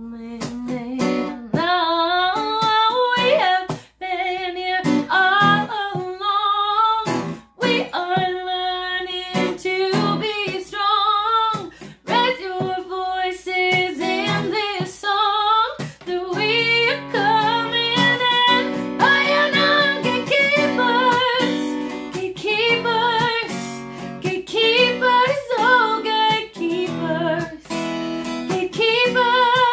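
A woman singing a blues-rock and soul song, accompanying herself on a strummed acoustic guitar. The strumming grows fuller, with deeper chords, about halfway through.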